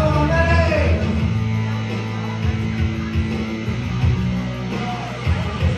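Live rock band playing: a woman's sung line ends about a second in, and electric guitar and low bass notes carry on without vocals.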